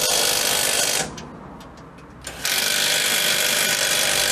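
Cordless drill spinning a socket to run in the bolts of a Land Rover's front shock absorber turret, in two runs: a short one of about a second at the start and a longer one of about two seconds near the end.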